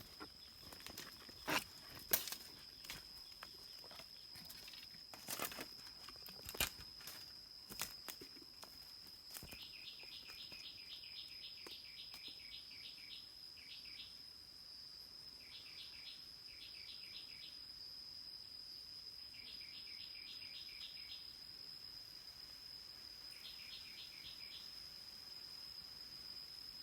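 Insects calling: a steady high drone, and from about nine seconds in, repeated short trains of rapid chirps. A few sharp clicks or knocks sound in the first eight seconds.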